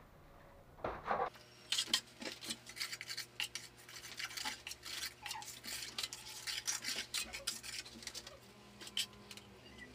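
A metal plastering trowel scraping and tapping on wet mortar in quick irregular strokes with sharp clicks, starting about a second in. A faint steady hum runs underneath.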